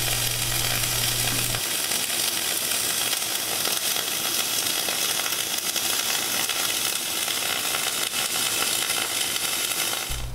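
Flux-cored arc welding with an all-position E71T-1 wire under 100% CO2 shielding gas at 275 amps and 29 volts: the arc runs steadily, giving off a continuous sizzle.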